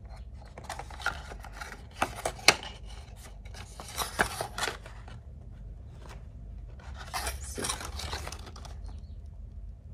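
A perfume box being opened and its contents handled: sharp clicks and taps of the bottle and packaging, the loudest about two and a half seconds in, and a stretch of rustling packaging near the end.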